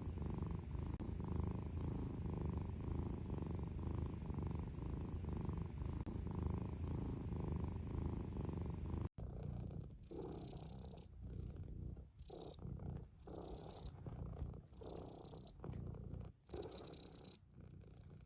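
Domestic cat purring, a continuous low rumble. About halfway through it cuts abruptly to another purr that swells and fades about once a second, rising and falling with the cat's breathing.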